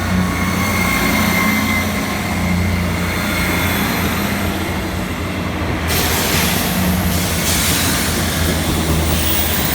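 Class 159 diesel multiple unit running steadily as it pulls away, its underfloor diesel engines giving a low hum. A rushing hiss joins about six seconds in.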